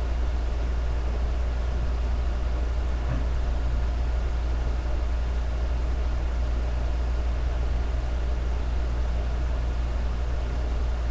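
Steady low electrical hum with an even background hiss, with one faint knock about three seconds in.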